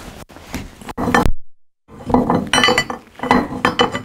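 Metal clinking and rattling of a wrench working the nut of a screw jack under a log post, in short bursts about once a second, as the nut is loosened to let the post settle. The sound drops out completely for a moment about a second and a half in.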